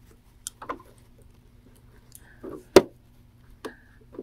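Quilt binding fabric being folded by hand at a sewing machine: soft fabric handling sounds, with one sharp click a little past the middle, over a low steady hum.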